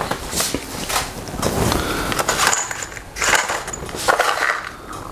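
Small metal screws and hardware clattering and scraping in plastic parts bins and drawers as they are rummaged through, in irregular bursts with scattered clicks.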